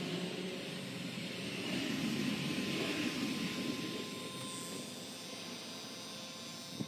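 Automotive smoke tester running with a steady whirring hiss, swelling a little about two to three seconds in, as it pushes smoke into the engine's intake to find where air is leaking.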